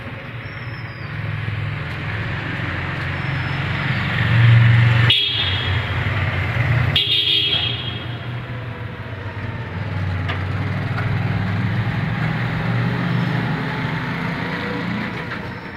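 Motorcycle engine running as it rides through a road underpass, with two short horn toots about five and seven seconds in.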